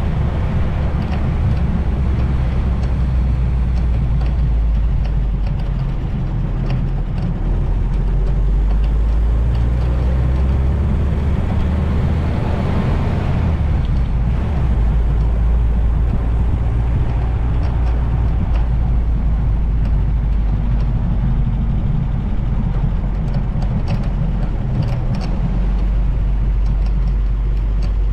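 Open vintage Willys Jeep driving slowly: engine and road noise under a heavy, fluctuating low rumble of wind buffeting on a GoPro fitted with a foam wind buffer. A swell of broader noise comes about halfway through.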